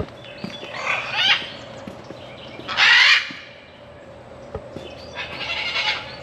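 Cockatoo screeching: three harsh calls, the loudest about three seconds in and the last a longer one near the end.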